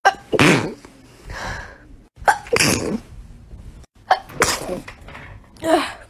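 Human sneezes, about four of them one after another, each a short, sharp burst, with abrupt cuts between them.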